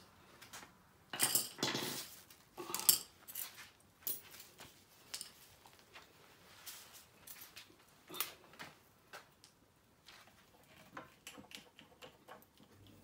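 Small metal hand tools clinking and knocking as they are picked up and handled, in irregular clicks that are loudest in the first few seconds and then thin out.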